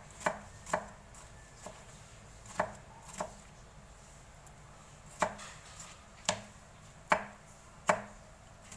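Kitchen knife chopping tomatoes on a plastic cutting board, mincing them small: sharp knife strikes at an uneven pace of about one a second, with a pause of about two seconds midway.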